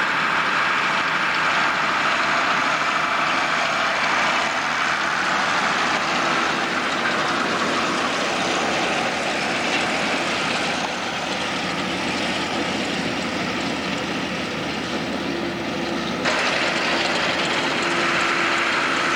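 Tractor engine running steadily while pulling a round baler that is picking up and rolling hay, a dense machine noise whose character shifts abruptly twice.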